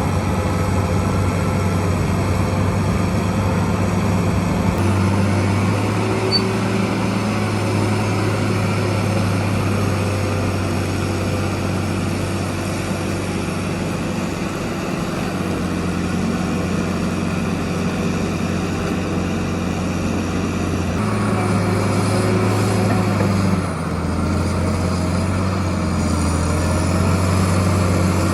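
CAT D8R bulldozer's diesel engine running steadily under load with a deep, even drone. The note changes abruptly three times as the footage cuts between takes.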